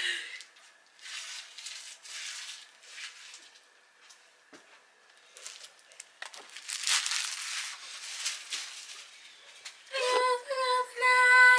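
A bag and its contents being handled, crinkling and rustling in several bursts. Near the end a voice holds one long drawn-out note.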